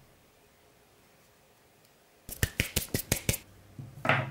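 Serrated knife cutting a ball of edible modeling clay into fry-shaped strips: a quick run of about eight sharp clicks as the blade goes through and meets the plate. A short rustle near the end as the cut pieces are handled.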